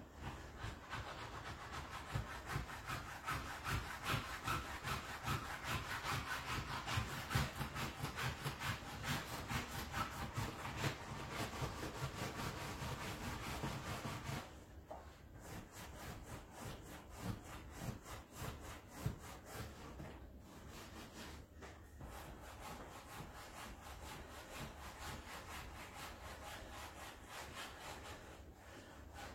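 Rhythmic back-and-forth scraping strokes, steady throughout and louder in the first half, dropping noticeably quieter about halfway through.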